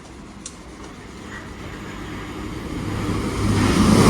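Voyager diesel multiple unit approaching, its engine drone and wheel noise growing steadily louder and coming in strongly about three seconds in.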